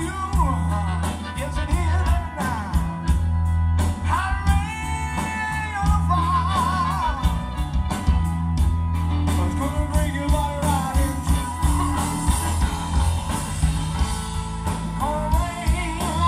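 Live electric blues band playing: a man sings lead over electric guitar, bass guitar and drums, with a harmonica line near the end.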